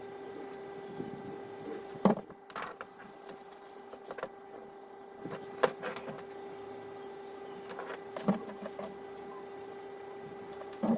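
A steady electrical hum with four or five sharp clicks and knocks from tools and parts being handled at a soldering workbench.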